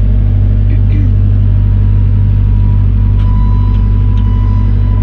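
Tractor engine running steadily while carrying a round hay bale, heard from inside the cab. A thin steady whine joins about three seconds in.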